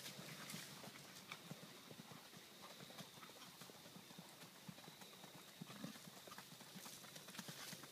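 Faint, quick hoofbeats of a Paso Fino gelding gaiting on sand footing, a rapid patter of soft hoof strikes.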